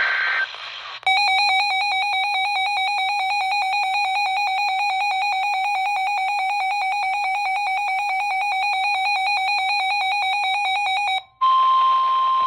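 NOAA Weather Radio alert for a flash flood warning: the end of a digital SAME header burst, then a weather radio receiver's built-in alarm beeping rapidly at one high pitch for about ten seconds. After a brief gap the broadcast's long steady attention tone begins near the end.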